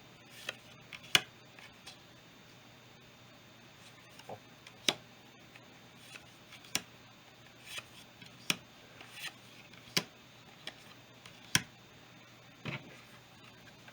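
Yu-Gi-Oh trading cards being flipped through one at a time, a sharp card snap or tap about every second at uneven spacing.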